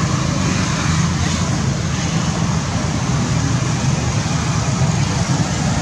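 Steady low rumble with an even hiss, loud and unchanging, with no distinct events.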